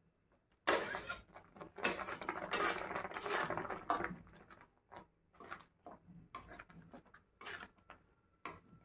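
Flat metal spatula scraping and stirring moist grated fresh coconut and milk around a metal kadhai. It starts with a run of continuous scraping strokes for about three seconds, then continues as shorter, separate strokes with pauses between them.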